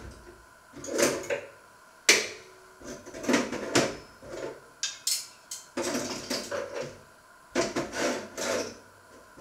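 Irregular clattering and knocking of kitchen things being handled at the counter, with a sharp knock about two seconds in.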